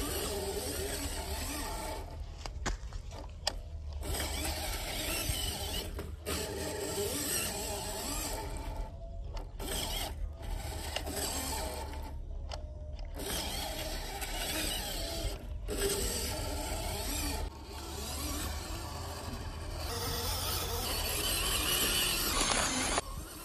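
MN99S Defender 90 RC crawler's electric motor and gearbox whirring as it is driven, cutting out briefly several times as the throttle is let off.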